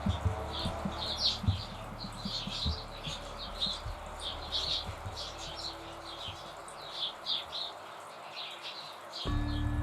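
Small songbirds chirping: a busy run of short, high calls throughout, with soft low taps and thuds in the first half.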